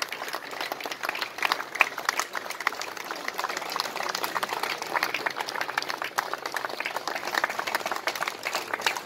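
A crowd applauding: dense, continuous clapping throughout.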